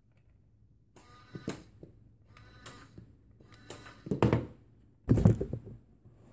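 Small electric motors of an RC missile-launcher toy car whirring in several short bursts, with two heavy thumps about four and five seconds in.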